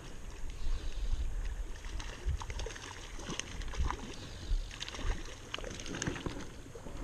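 Water splashing and sloshing in a shallow stream as a small hooked trout is handled at the surface, a scatter of short splashes over a low rumble of wind on the microphone.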